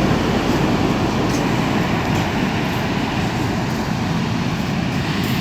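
Steady, low rushing roar of rough sea and wind, with a few faint ticks.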